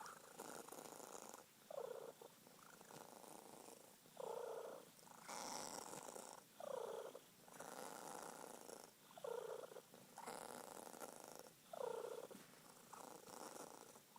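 Sphynx cat purring, the purr swelling about every two and a half seconds with each breath.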